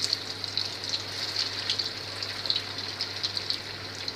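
Sabudana and potato tikkis deep-frying in hot oil: a steady sizzle with many small crackling pops.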